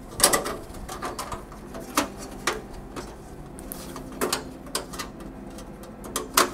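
Thin stamped-metal motherboard I/O shield being handled and pressed into its opening in a PC case: irregular sharp metallic clicks and taps, with the loudest near the start and just before the end.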